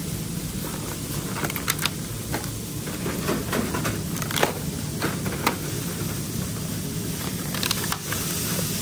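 Cardboard takeaway boxes and paper bags being handled and packed, giving scattered light taps, knocks and rustles over a steady low kitchen hum.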